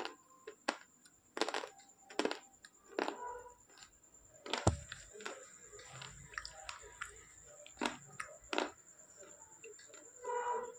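Slate pencil being bitten and chewed: a series of sharp crunches and cracks about a second apart, the loudest about halfway through, over a faint steady high whine.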